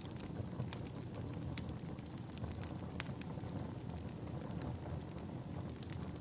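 Wood fire crackling in a fireplace: a steady low rumble of burning with scattered sharp pops and snaps, one louder pop about three seconds in.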